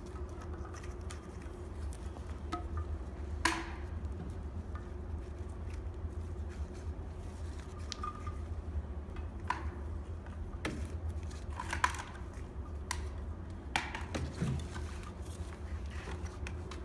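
Handling noise from pulling a pump's power cord through a fountain bowl and moving the submersible pump about inside it: scattered light knocks, clicks and rustles over a steady low hum.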